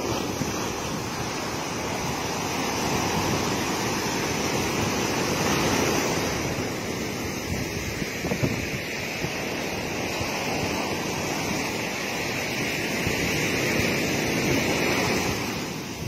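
Atlantic Ocean surf at the shoreline: a steady rush of breaking waves and foam washing up the beach, swelling twice as waves come in.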